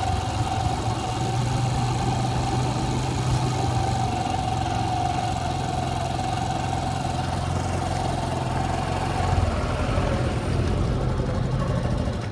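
A motor vehicle's engine running steadily: a low hum with a thin, steady whine above it, cut off abruptly at the end.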